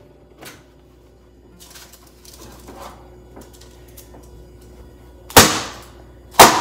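Light clattering as a metal sheet pan of half-baked chocolate chip cookies is taken out of the oven, then two loud bangs, about a second apart, of the sheet pan dropped onto the counter, each with a short metallic ring. The banging makes the cookie dough spread so the cookies come out chewy at the edges and soft in the middle.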